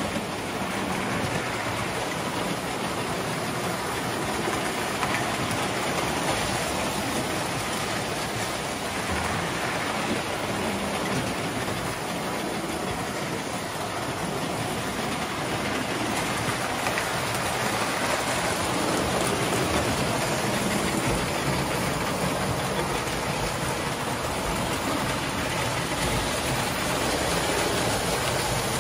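Toy electric trains running on metal track: a steady rumble and whir of wheels and motors.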